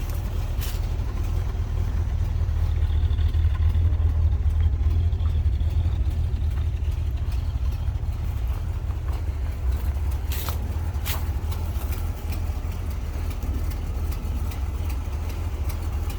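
An engine idling steadily with a deep, low rumble, and a couple of faint clicks about two-thirds of the way through.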